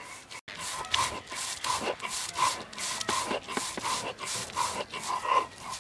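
Stone roller scraped back and forth over a flat stone grinding slab (shil-pata), grinding wet spice paste: a gritty rubbing stroke about two to three times a second.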